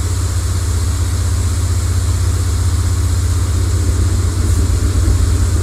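Motorcycle engine idling steadily: a low, fast-pulsing rumble with a hiss over it.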